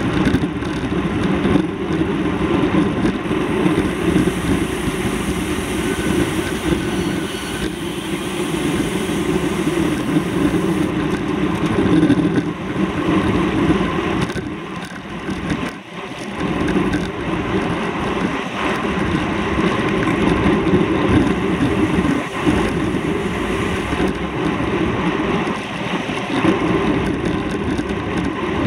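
Steady vehicle engine and road noise, continuous throughout, with a brief drop in level about 16 seconds in.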